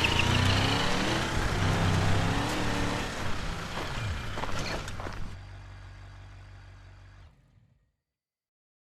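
Dubbed-in truck engine sound effect running and revving, fading down about five seconds in and cutting to silence near the end.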